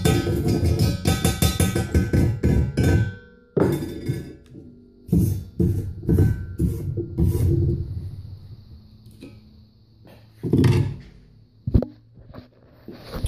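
Chipping hammer and wire brush cleaning slag off fresh 7014 stick welds on a steel column and base plate: a fast run of metallic chipping and scrubbing for about three seconds, then slower ringing hammer strikes about two a second, and a couple of single knocks near the end.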